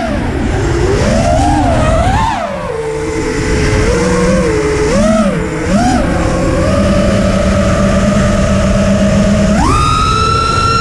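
Racing quadcopter's T-Motor F40 Pro III brushless motors and props whining, picked up on the drone's own onboard camera, the pitch swooping up and down with the throttle. It holds steady for a few seconds, then jumps sharply higher near the end.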